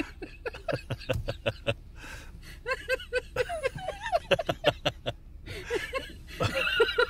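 A woman laughing hard in three bouts of quick, breathy, rhythmic laughs.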